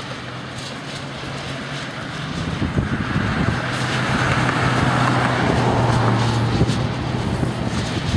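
A motor vehicle passes on the road, its engine hum and tyre noise swelling to a peak about halfway through and then easing off slightly.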